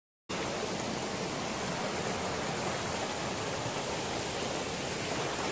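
Mountain stream rushing steadily: an even, unbroken noise of running water that starts abruptly after a brief gap at the very start.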